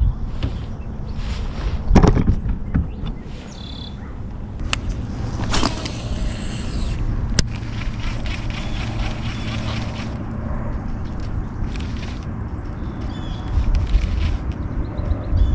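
Wind rumbling on the microphone outdoors on the water, with a couple of sharp knocks, short bursts of hissing noise, and faint bird chirps.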